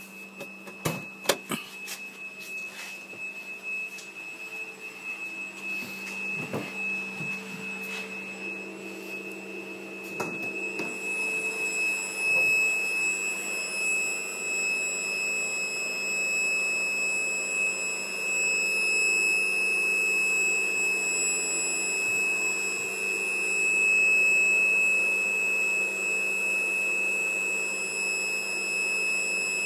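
A 2002 Volvo S80 giving off a steady, high-pitched whistle while the engine is switched off: one constant tone that grows louder about ten seconds in. A few clicks and knocks come in the first several seconds.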